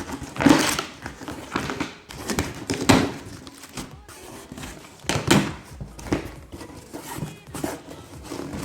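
Cardboard box with double packing tape being torn open by hand: irregular ripping and rustling noises with a few knocks, the loudest tears about half a second, three seconds and five seconds in.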